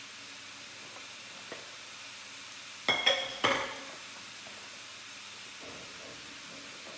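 Cauliflower rice sizzling in a pan on a gas stove as it is cooked down dry, with a few sharp ringing clinks of cookware about three seconds in and stirring with a wooden spoon near the end.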